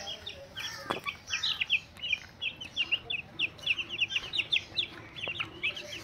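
Birds chirping: a rapid string of short, high chirps, several a second.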